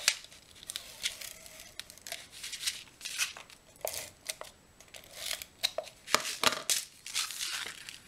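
Cardstock being handled and rubbed with a small hand tool: a series of short, irregular scraping and rustling strokes.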